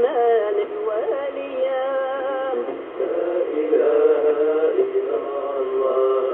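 Singing with music from a Polish Catholic Mass broadcast, received on longwave AM through a Yaesu FRG-100 communications receiver. It has the dull, narrow sound of AM radio, with nothing in the top end.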